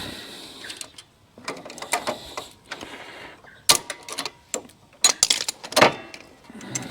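Hand tools and small metal parts being handled during motorcycle repair work: irregular sharp clicks, clacks and brief scrapes, the loudest a cluster between about four and six seconds in.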